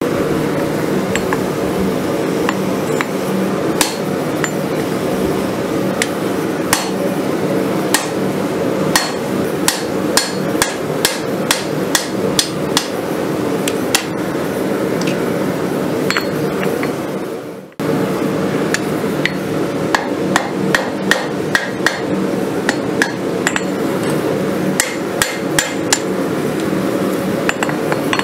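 Hand hammer striking a red-hot farrier's rasp on an anvil in a run of sharp metallic blows, spaced out at first and then about two to three a second, over a steady machine hum. The blows break off briefly about two-thirds of the way through, then resume.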